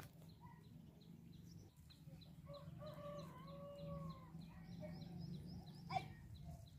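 Faint hens clucking, over a short high chirp repeating about three times a second. One sharp knock comes about six seconds in.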